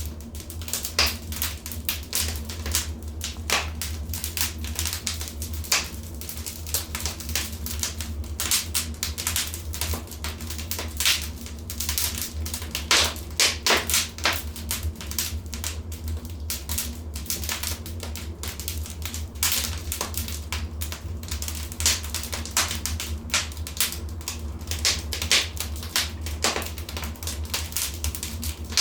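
Wood fire crackling in a fireplace: many irregular sharp pops and snaps, denser in places, over a steady low rumble.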